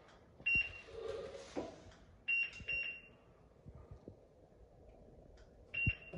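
Short, high electronic beeps from a Prodim Proliner digital templating device as points are recorded with its stylus: one about half a second in, a quick run of three a couple of seconds in, and one more near the end. Each beep confirms that a measurement point has been stored.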